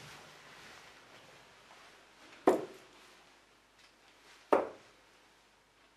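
Two darts striking a Unicorn Eclipse bristle dartboard, about two seconds apart, each a short sharp impact.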